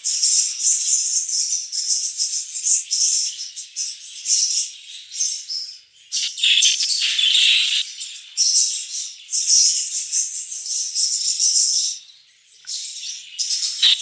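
English budgerigars chattering and warbling: a steady run of scratchy, high chirps broken by short pauses, with a louder, lower call about halfway through.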